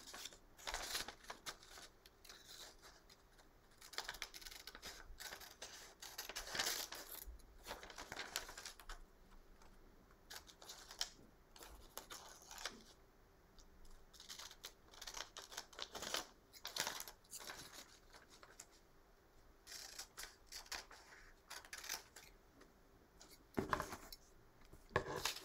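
Scissors snipping through grid paper in short, irregular cuts, faint and intermittent, with the paper handled between snips.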